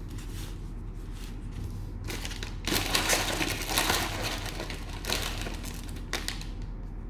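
Crinkling of a cellophane card-pack wrapper being handled and opened, in irregular rustles, the longest and loudest lasting over a second about three seconds in.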